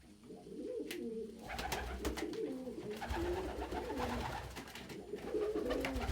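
Several domestic pigeons cooing over one another, low wavering coos starting about half a second in, with a few sharp clicks and rustles among them.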